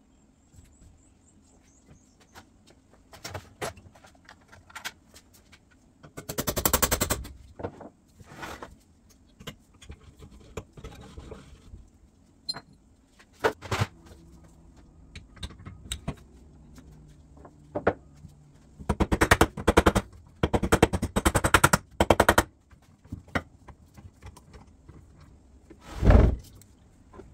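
Several bursts of rapid, evenly spaced mechanical clicking, each lasting about a second, with scattered single knocks and clicks between them.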